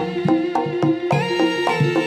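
Jaranan accompaniment music: an instrumental ensemble of held melodic tones over a steady beat of struck percussion notes, about four a second.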